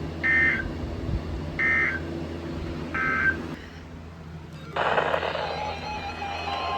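Three short, high-pitched data bursts of the Emergency Alert System end-of-message signal, about a second and a half apart, from a weather radio over a steady low hum. About five seconds in, a louder hiss with a faint pulsing tone starts.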